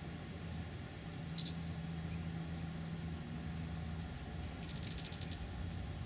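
Oregon dark-eyed juncos giving short, high chip calls, the loudest about a second and a half in, with a quick rapid twitter near the end, over a steady low hum.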